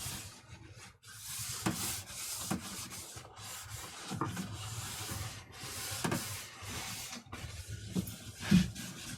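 Wiping and scrubbing the plastic casing of a TV to clean off a film of nicotine residue: repeated rubbing strokes, about one a second, with a brief knock near the end.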